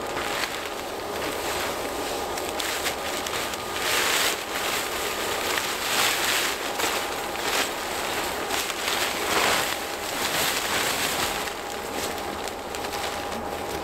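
A cheap plastic tarp rustling and crinkling in irregular swishes as it is unfolded and shaken out by hand.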